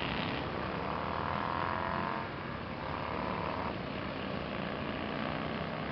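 Motorcycles running at speed around a race track, heard from a distance. Two engine notes come through one after another in the first four seconds, the first falling slightly in pitch as it passes.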